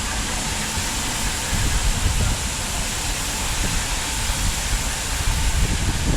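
Wind buffeting the microphone on an open chairlift, a low irregular rumble over a steady hiss.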